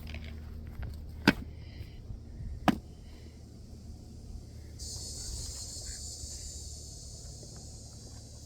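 Two sharp clicks about a second and a half apart, then a steady high buzz of insects starting about five seconds in, over a low rumble.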